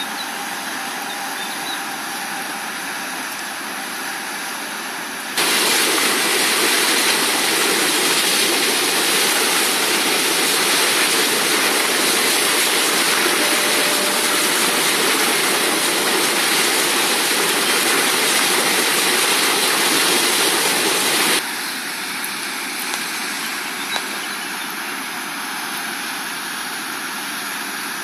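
A river in spate rushing steadily through a breaking standing wave. The rush jumps abruptly louder and brighter about five seconds in, and drops back just as abruptly about twenty-one seconds in.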